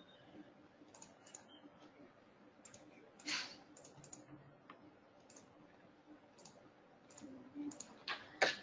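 Faint computer mouse clicks, a dozen or so single clicks spaced irregularly, with one louder click about three seconds in.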